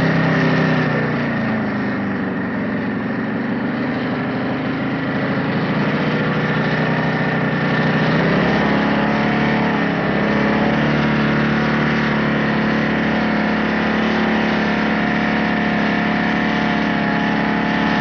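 Motorcycle engine running steadily near idle. Its pitch dips about a second in and picks up again around eight seconds, then holds steady.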